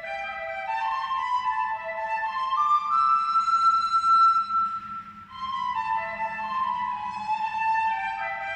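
Instrumental music: a slow solo melody on a flute-like or bowed instrument, climbing over the first few seconds to a long held high note and then falling away briefly before the phrase resumes.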